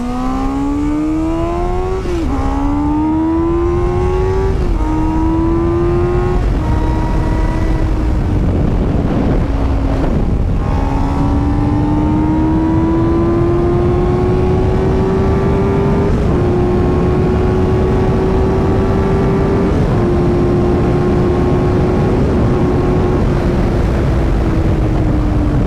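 Motorcycle engine accelerating hard through the gears. The engine pitch climbs and drops back at each upshift, several times, over a steady rush of wind.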